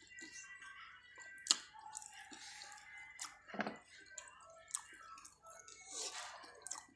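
Close-up eating of spicy chicken feet: wet chewing and sucking, mixed with scattered clicks and clinks of a utensil or fingers on a plate. The loudest click comes about a second and a half in.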